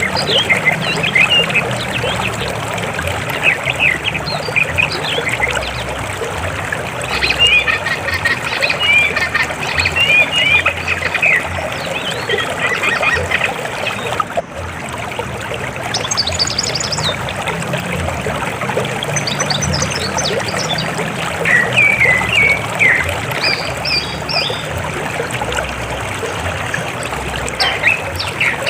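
River water flowing steadily, with many short, high chirping calls over it in clusters, busiest about a third of the way in and again past two-thirds.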